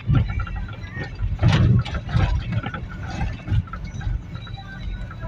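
Car cabin sound while driving: a steady low road and engine rumble with irregular knocks and bumps, loudest about a second and a half in.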